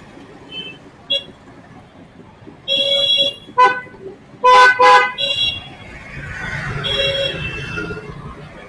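Vehicle horns honking in road traffic: a honk about three seconds in, then a quick cluster of short, loud toots, with another honk near the end, over the steady noise of traffic.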